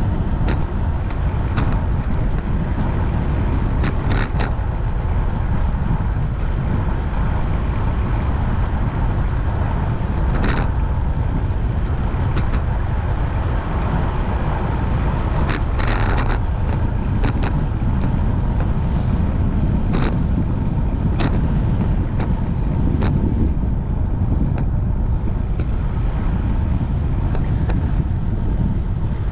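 Steady wind rush and road rumble on the microphone of a bicycle-mounted camera while riding along a street. Scattered sharp clicks and rattles come through, a handful over the stretch.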